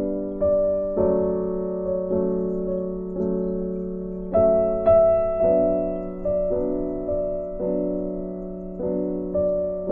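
Slow background piano music: soft chords struck about once a second, each left to ring and fade.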